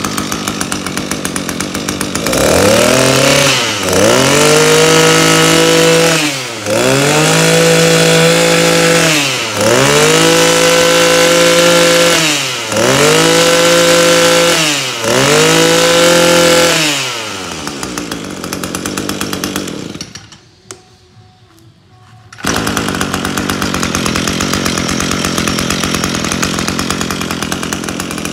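Echo CT24E two-stroke brush cutter engine idling, then revved up about five times in a row, each burst held about two seconds before dropping back to idle. About two-thirds through it goes nearly quiet for a couple of seconds, then the idle is heard again.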